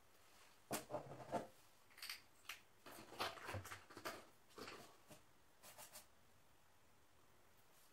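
Faint rustling and clicking as small objects are handled, a scatter of short sounds over the first six seconds, then quiet.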